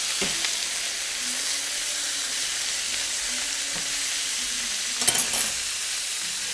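Food frying in a hot pan with a steady sizzle, and a brief clatter about five seconds in.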